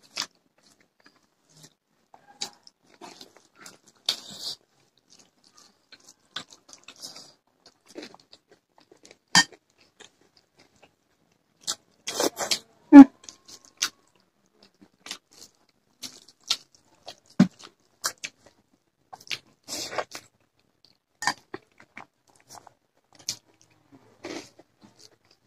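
Close-up eating sounds: scattered wet clicks and smacks of chewing and of fingers working rice and curry on plates, irregular and short, with one louder sharp click about halfway through.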